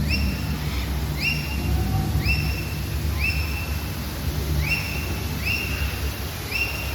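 A bird repeats a short whistled call about once a second, each note rising quickly and then holding level. A low, steady rumble runs underneath.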